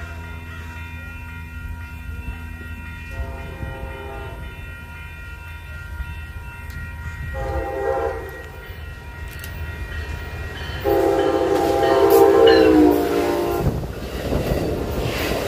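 Amtrak Pacific Surfliner train arriving and sounding its horn: two short blasts, then a longer, louder one about eleven seconds in. Near the end the train rumbles past along the platform.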